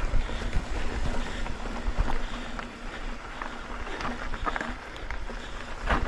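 Mountain bike riding a dirt trail: tyres rolling and crunching over rocks and gravel, with scattered clicks and rattles from the bike and wind rumbling on the microphone.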